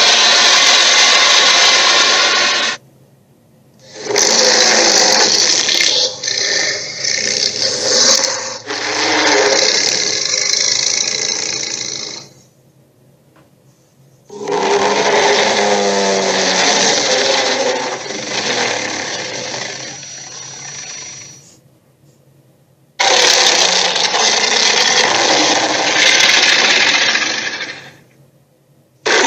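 Dragon sound effects: a series of long, rough, loud roars and growls, each lasting several seconds, separated by brief silences.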